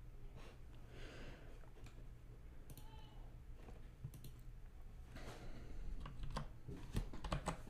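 Typing on a computer keyboard: a few scattered keystrokes, then a quicker run of key clicks in the last couple of seconds.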